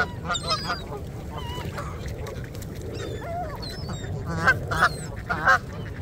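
A flock of Canada geese honking, with a run of three loud honks near the end.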